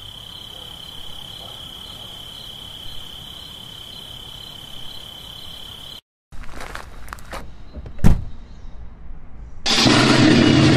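Outdoor helmet-camera audio: a steady high whine over faint hiss. After a brief dropout come scattered knocks and rustling with one sharp click, and near the end a loud rushing noise.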